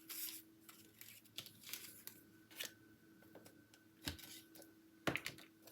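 Scissors snipping paper by hand: a few short, scattered snips and paper rustles with pauses between them.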